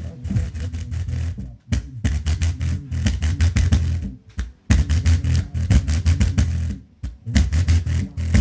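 Subwoofer playing heavy, deep bass in rapid pulses, shaking a puddle of oobleck on plastic wrap over its cone; the bass cuts out briefly three times.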